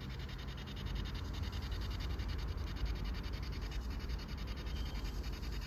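P-SB7 spirit box sweeping through FM radio frequencies, giving out a steady hiss of radio static chopped into a fast, even stutter as it steps from station to station.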